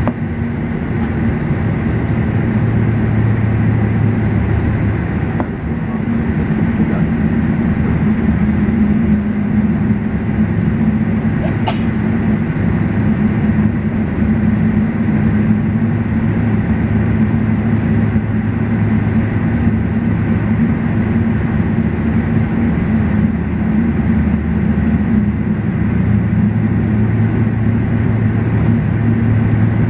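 Steady cabin noise inside a Boeing 777-300ER taxiing to the gate: its GE90 engines at idle and a low rumble from rolling, with two steady hums. A faint click about twelve seconds in.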